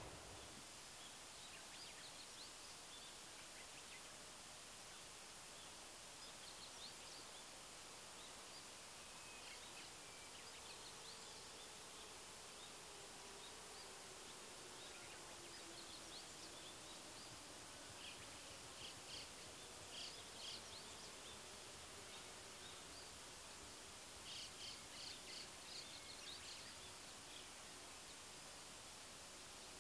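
Near-silent outdoor ambience: a faint steady hiss with scattered short, high chirps from small birds, coming in a few brief clusters, the busiest in the last third.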